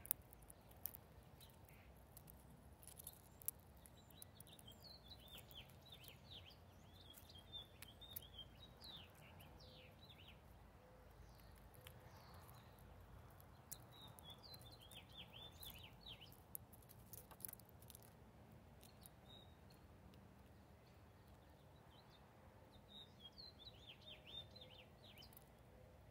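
A small songbird singing three phrases of quick, high chirping notes several seconds apart: about four seconds in, around fourteen seconds in, and near the end. Faint scattered clicks and taps sound between the phrases.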